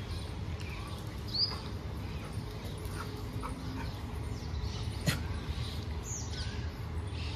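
A pack of dogs in a yard, with a few short high-pitched calls over a steady low rumble, and one sharp click about five seconds in.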